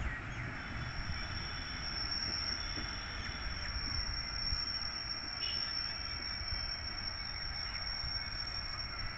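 An insect calling in one steady high-pitched tone without a break, with faint bird chirps and a low rumble underneath.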